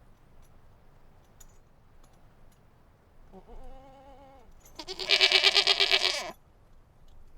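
Sheep bleating twice: a short, soft baa about three seconds in, then a louder, longer baa that wavers rapidly.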